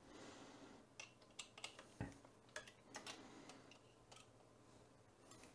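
Near silence with a few faint, scattered clicks of a hex driver turning the lock screws of a carbon-fibre camera mount, the clearest about two seconds in.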